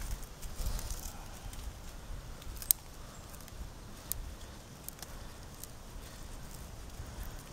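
A handmade knife working a small wooden stick: faint scraping with several sharp clicks and snaps. The loudest snap comes a little under three seconds in and a smaller one about a second later, over a low fluctuating rumble.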